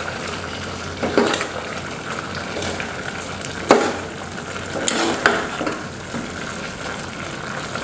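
Red curry sizzling in a metal pot while a metal ladle stirs pork rib cartilage and sliced banana peppers and chilies, stir-frying the peppers until they wilt. The utensil scrapes and knocks against the pot a handful of times, loudest about three and a half seconds in.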